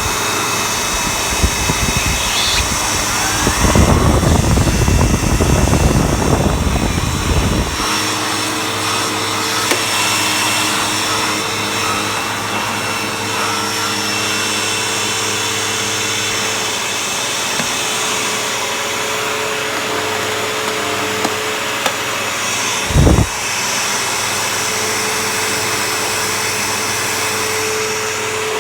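Bissell CleanView Helix vacuum cleaner running steadily with a high whine as it vacuums carpet, with a stretch of heavier low rumbling about four to eight seconds in and a short knock about twenty-three seconds in.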